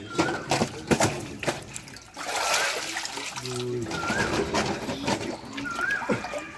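Water splashing and sloshing in a fish holding tank as a man wades in it and grabs at the fish with his hands. Many sharp splashes in the first couple of seconds, and a short chirp repeats about every second and a half throughout.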